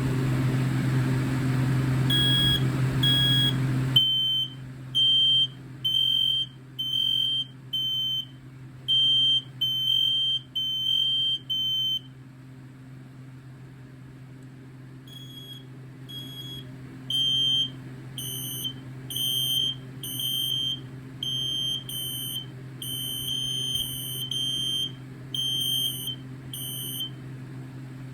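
Interconnected FireX ADC 120-1072C ionization smoke alarms sounding their high-pitched piezo horns in a test: a run of short repeated beeps, a pause of about three seconds, then the beeping comes back faint and grows louder, the alarms' ramp-up.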